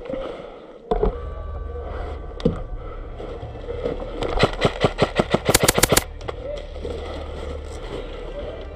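Airsoft rifle firing a string of rapid shots lasting about two seconds, the last half-second a dense full-auto burst that stops abruptly. A steady low rumble runs underneath.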